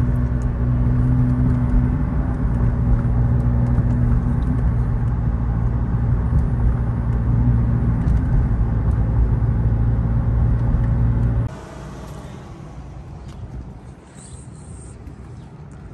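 McLaren coupe's engine running with a steady low drone, heard from inside the cabin while the car is driven slowly. About three-quarters of the way through it cuts off abruptly, leaving much quieter outdoor background.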